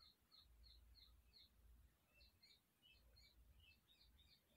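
Near silence, with a bird chirping faintly in the background: short high chirps, about three a second at first, then more irregular.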